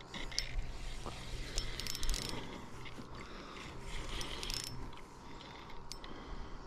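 Spinning reel being cranked against a hooked hybrid striped bass, its gears whirring and clicking in spells, strongest for the first two seconds and again around four seconds in.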